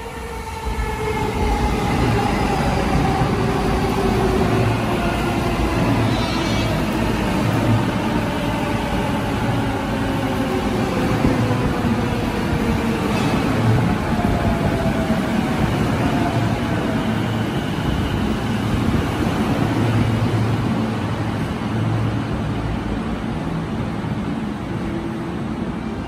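JR East E233 series electric commuter train running into the station and braking. Its motor whine falls slowly in pitch as it slows, over a steady rumble of wheels on rail with repeated low thuds.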